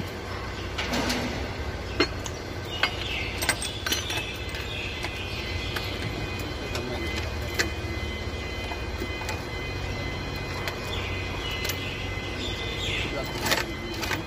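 Hand tools clicking and clinking against the rocker arms and adjusting screws of a Deutz diesel cylinder head as the valve clearance is set with a feeler gauge and wrench. Scattered single clicks and taps come over a steady low background hum.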